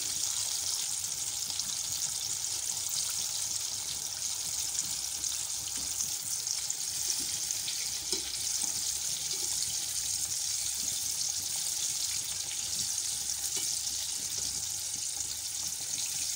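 Chicken nuggets sizzling in hot oil in a deep pot, a steady hiss with fine crackle, during their second fry on a medium-to-low flame.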